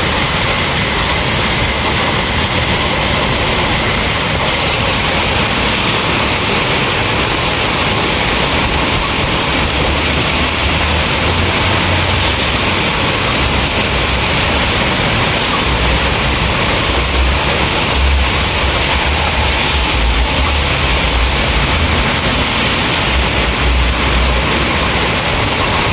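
Steady, loud rainfall, with low rumbles coming and going from about ten seconds in.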